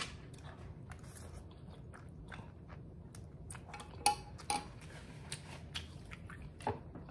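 A person chewing a mouthful of spicy noodles, close to the microphone, with a run of small wet mouth clicks and smacks. A few louder smacks come about four seconds in and again near the end.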